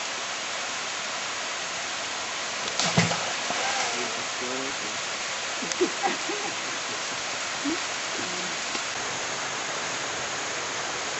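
Waterfall pouring into a pool: a steady, even rush of falling water, with a sharp knock about three seconds in and a few faint voices in the middle.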